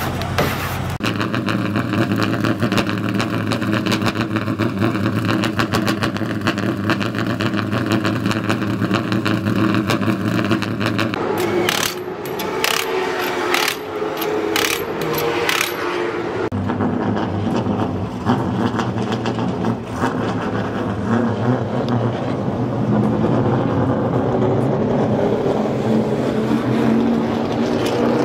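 Race car engines running steadily during track testing. About halfway through, several short rattling bursts from a cordless impact wrench on a wheel's lug nuts cut in, and then the engine sound carries on.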